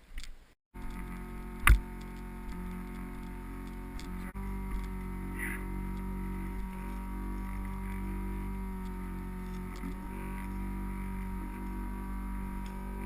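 Anti-fog goggle fan running right beside the camera: a steady hum of several unchanging tones, heard through a waterproof GoPro case. It comes in after a brief dropout, and a single sharp click stands out about two seconds in.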